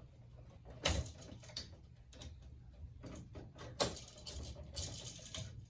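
Hands handling a wall light switch and its wiring: small knocks and rubbing, with two sharp clicks, one about a second in and a louder one near four seconds.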